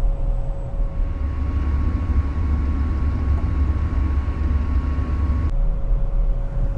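Steady mechanical hum of rooftop HVAC equipment running, with a thin steady tone over it. About a second in a louder low drone with a faint higher whine joins it, then cuts off abruptly near the end.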